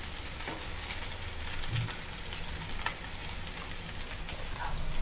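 Poha (flattened rice) with onion and peanuts sizzling faintly in a hot kadhai, with a few light scrapes of a wooden spatula stirring it.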